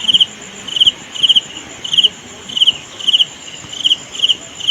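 Cricket chirping: short pulsed chirps repeating steadily, about two a second.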